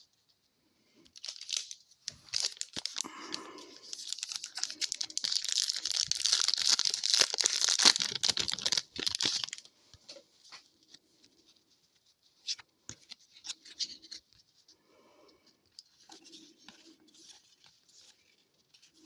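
A hockey card pack wrapper being torn open: a long crinkling rip lasting several seconds. After that come only faint ticks and rustles as the cards are handled.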